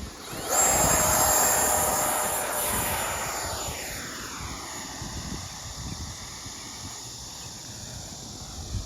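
An 80 mm electric ducted-fan model jet (Avanti) making a fast pass. Its high whine and rush come on sharply about half a second in, then fall in pitch and fade as it flies away. Wind rumbles on the microphone throughout.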